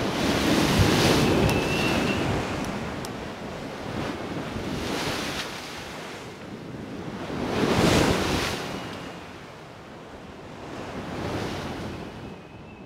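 Ocean waves: rushing surf that swells and fades every few seconds, loudest about eight seconds in.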